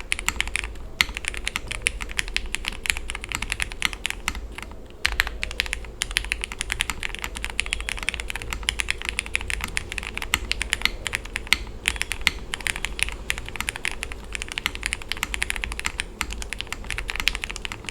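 Typing on a Tiger Lite gasket-mount mechanical keyboard with a polycarbonate plate, plate foam, lubed Cherry MX Black linear switches and GMK keycaps. It is a rapid, steady run of keystrokes, with a short pause about four and a half seconds in.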